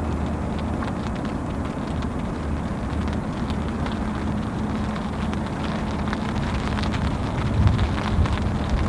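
Heavy rain falling, with scattered drops ticking on or near the microphone, over a steady low hum.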